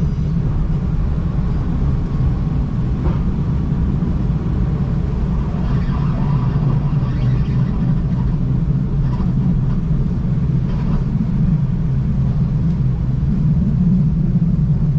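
Steady low rumble of a V/Line passenger train running, heard from on board, with a few faint clicks scattered through.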